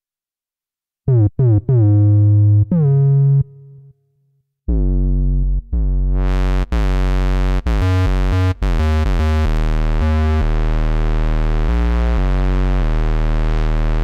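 GForce software emulation of the Oberheim OB-X synthesizer playing its 'Sonic Thump' preset, a fat mono bass. A short bass phrase, a pause, then a bass line whose filter cutoff is opened about six seconds in, making the tone much brighter.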